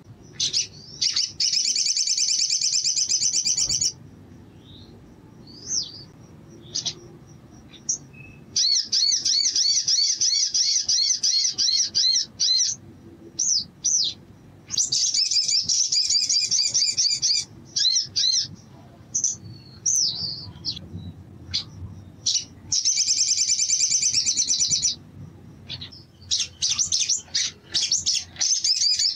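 Male olive-backed sunbird singing: five bursts of fast, high trilling, each a few seconds long, with short single chirps in the gaps between them.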